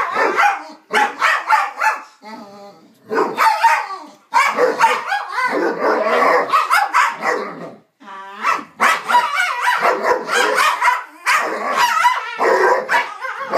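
Two basset hounds barking and growling at each other while play-wrestling. The noises come in long, wavering bursts with short gaps, and a quick rattling growl just before the halfway mark.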